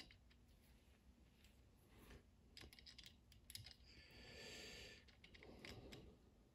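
Near silence with faint small clicks of metal parts as the ambidextrous safety selector lever is lined up and fitted on an AR-15 lower receiver, and a soft hiss about four seconds in.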